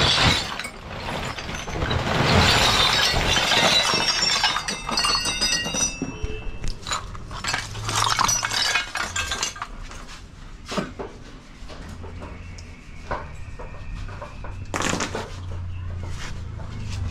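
Metal hand tools clinking and knocking irregularly against a worn motorcycle chain sprocket as its hooked teeth are worked on, with a steady rushing noise through the first several seconds.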